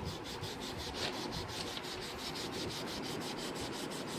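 1200-grit sandpaper rubbed by hand along the stainless-steel bevel of a kiridashi knife, in quick, even back-and-forth strokes of about seven a second: a final fine sanding of the already sharp edge.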